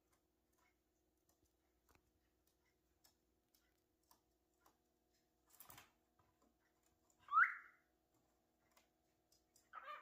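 Cockatiel gives one short, rising whistle about seven seconds in, the loudest sound here, and starts another call right at the end. Faint scattered clicks and a brief rustle-like noise come between.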